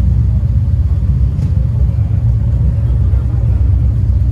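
Steady low rumble of motorcycles on the move, engine and road noise with no clear rise or fall.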